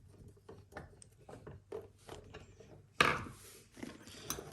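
Small clicks and scrapes of bike carrier parts and screws being handled and tightened, with one sudden louder knock about three seconds in.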